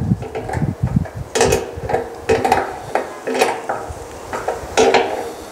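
Stainless steel honey extractor parts being handled during assembly: a series of sharp metal clanks and knocks, each with a short ring, the loudest four about a second apart.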